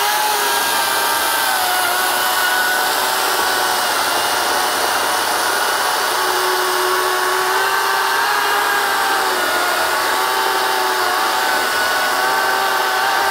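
EGO Power+ CS1804 battery-powered chainsaw cutting down through an oak log: a steady electric motor and chain whine, its pitch sagging a little at times as the chain bites into the wood.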